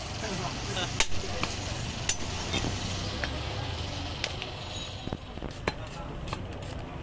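Butcher's cleaver chopping goat meat on a wooden log block: a series of sharp, irregularly spaced knocks. A steady low rumble runs underneath.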